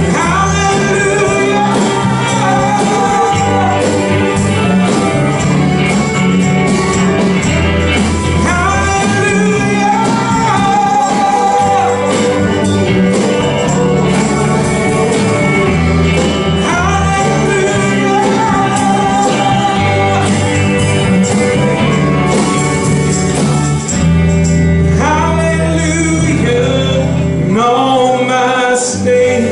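Live worship band playing a gospel song: singing with electric guitar and bass, loud and steady throughout.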